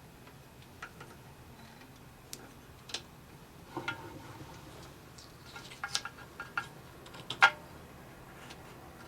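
Scattered sharp clicks and light metallic clinks from handling a scroll saw while its blade is fitted, the loudest about seven and a half seconds in; the saw motor is not running.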